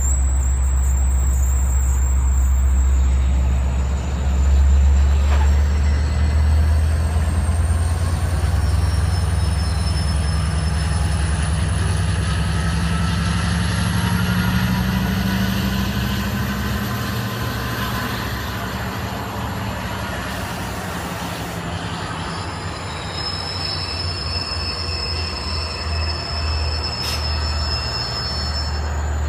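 Long Island Rail Road diesel train standing at a station platform, its engine running with a steady low drone. A faint high whine slowly rises and then falls in pitch over it.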